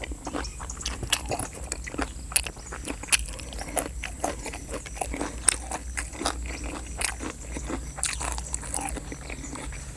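Close-up chewing and crunching: a person eating spicy chicken-feet salad (tam lep mue nang) in fermented-fish sauce with fresh raw vegetables, making a run of irregular crunchy bites and mouth clicks.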